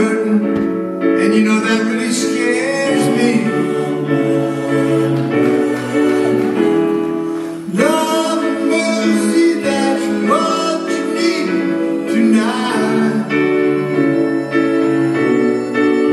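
Live band music with a man singing the lead vocal at a keyboard, sung notes held over sustained chords.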